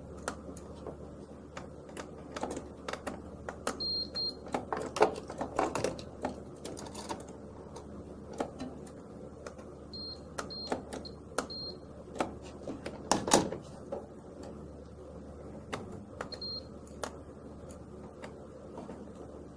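Plastic clicks and knocks of hands working the contactors and wiring of an electrical panel, over a steady low hum. A multimeter's continuity tester gives a few short high beeps: one near 4 s, three or four in quick succession about 10 s in, and one near the end. Each beep signals a closed circuit during a continuity check of the wiring.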